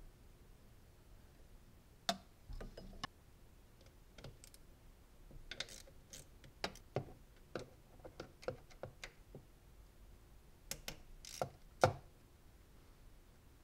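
Scattered light clicks, taps and short scrapes of hands and metal tools working on the fuel rail and injector connectors. The sharpest click comes about two seconds in, and the loudest one near the end.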